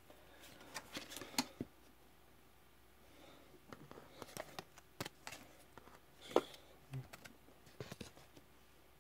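Baseball cards being handled and laid down on a tabletop: faint scattered clicks and rustles of card stock sliding and tapping, in several short clusters.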